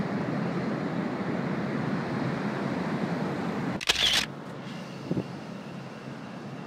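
Steady wind rushing over the microphone, then about four seconds in a camera shutter firing, a quick two-part click. The wind noise is quieter after it.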